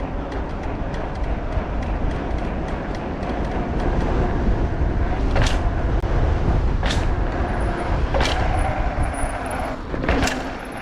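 Mountain bike riding down a set of stairs: a steady rumble of tyres and wind, with four sharp knocks about a second and a half apart in the second half as the wheels drop and land.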